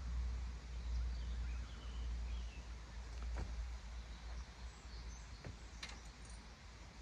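Outdoor background noise: a steady low rumble with faint bird chirps early on and a few faint clicks later.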